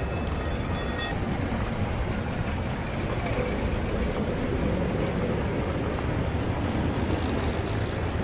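Steady city street traffic noise, a dense even rumble of motor vehicles with no single event standing out.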